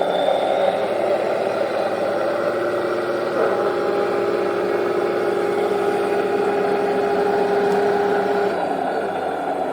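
Henglong T-72 RC tank's electronic sound unit playing a simulated tank engine through its small onboard speaker, running steadily, with its pitch stepping up about three seconds in and dropping near the end.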